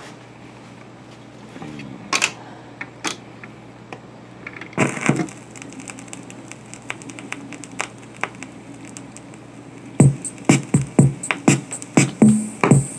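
Sears automatic record changer cycling between 45 rpm singles: mechanism clicks, then a louder thump about five seconds in as the next single drops onto the stack. About ten seconds in, a run of sharp crackles and pops as the stylus rides the lead-in groove, and music starts right at the end.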